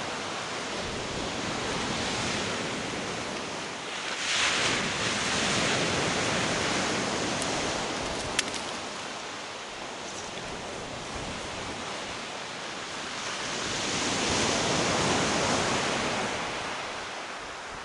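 Sea waves breaking and washing over a shingle beach, swelling twice, with one sharp click about eight seconds in.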